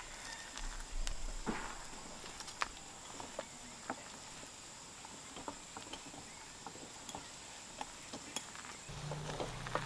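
Manual wheelchair rolling over a concrete path, making scattered light clicks and rattles at irregular intervals. A faint steady high whine runs behind it and stops shortly before the end.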